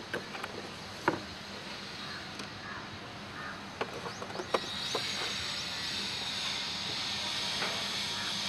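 Light clicks and knocks of surveying gear being handled: a sharp one about a second in and a cluster near the middle. About halfway through, a steady high hiss sets in and holds.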